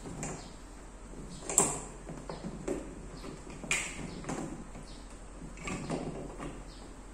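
Aluminium floor plates of an inflatable boat knocking and sliding as they are fitted into place: several sharp clanks amid scraping, the loudest about a second and a half in and another near four seconds.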